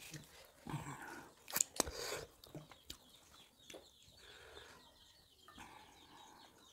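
Faint mouth sounds of eating: a few lip smacks and small clicks in the first two seconds or so, then mostly quiet with only scattered soft ticks.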